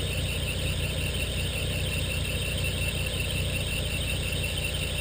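Car engine idling steadily, with a steady, slightly wavering high-pitched squeal over it.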